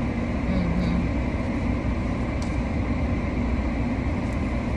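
Steady low rumble and hiss of a car's idling engine and air-conditioning blower, heard inside the cabin.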